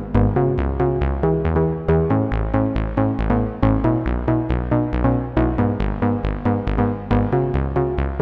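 Roland System-1 synthesizer patch playing an electronic sequence: a steady run of short plucky notes, about four a second, over a stepping bass line.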